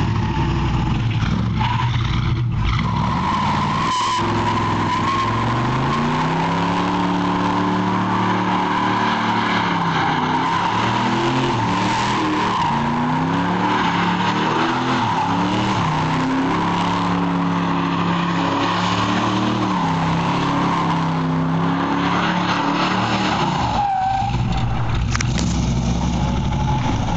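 Chevrolet Malibu engine revving hard and wavering up and down while its rear tyres spin and squeal in a long burnout. The tyre squeal holds a steady high tone and cuts out near the end as the revs drop.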